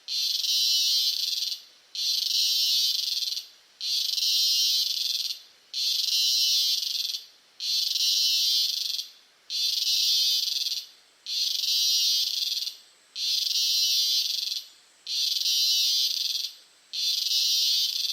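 Cicada calling at close range: a high-pitched buzz about a second and a half long, repeated about every two seconds with short breaks between, some ten times in a row.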